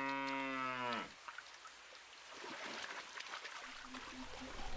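A cow's long, low moo that ends about a second in, followed by the soft sound of river water flowing and trickling.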